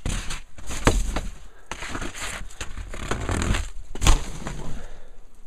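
Heavy snow being pushed off a roof edge, crunching and breaking away in clumps that fall onto a wooden deck railing, with a sharp knock about a second in and another about four seconds in.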